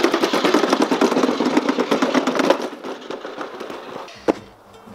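Small plastic wheels of a ride-on kart rattling over brick paving as it rolls, a dense rapid clatter that fades out about two and a half seconds in.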